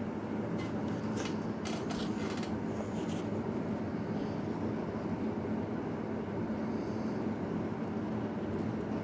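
Steady low hum and rumble of background noise, with short scratching strokes of a felt-tip marker drawing on paper, clustered about half a second to three seconds in and again near the end.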